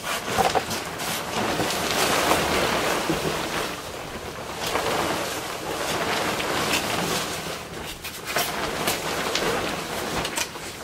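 Rustling and swishing of a down comforter's crinkly shell fabric as it is lifted, shaken and spread over a bed, coming in several swells with a few sharp crinkles.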